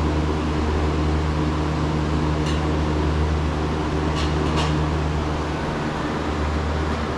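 Steady low mechanical hum, like a fan or air-conditioning unit running, with a few faint clicks about two and a half and four and a half seconds in.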